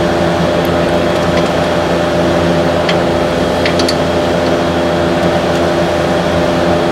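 Steady droning hum of a running machine, unchanging throughout, with a few faint light clicks.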